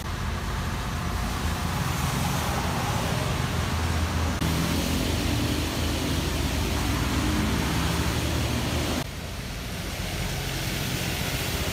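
Steady roadside traffic and vehicle engine noise with a low rumble, including a steady engine hum in the middle stretch; the sound changes abruptly about four and nine seconds in.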